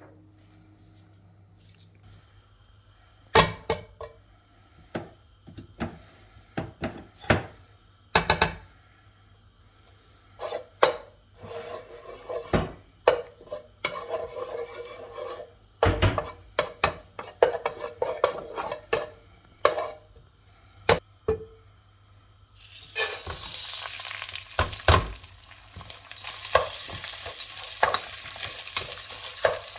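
Kitchen utensils knocking and clinking against a pot or pan, one sharp knock at a time. About three-quarters of the way through, a steady sizzle of food frying in hot fat starts, with stirring knocks on top of it.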